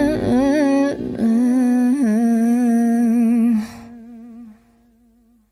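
Closing bars of a pop song. A singer holds one long, hummed-sounding note with vibrato as the accompaniment falls away. The note drops off sharply about two thirds of the way through and fades to silence.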